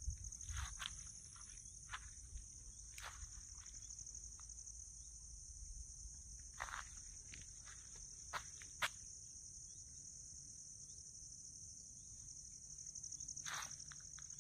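Steady, high-pitched chorus of insects, a continuous fine trill, with a few short clicks and taps scattered through it.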